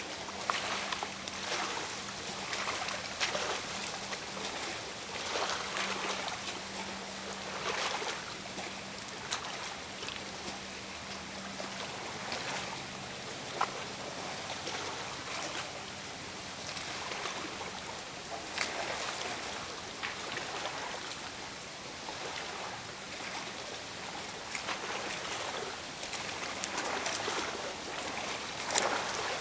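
Small lake waves lapping and splashing in a slow, uneven rhythm, with a few sharper splashes.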